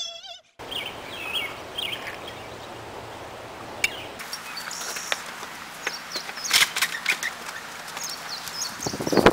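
Outdoor ambience: a steady background hiss with birds chirping now and then. Near the end, a louder stretch of rustling and knocks starts.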